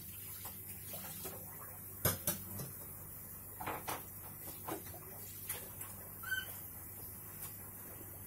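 White wagtail handling a superworm (Zophobas larva) on a hard countertop: a few sharp, irregular taps and knocks of beak and larva against the surface, the loudest about two seconds in, over a low steady hum.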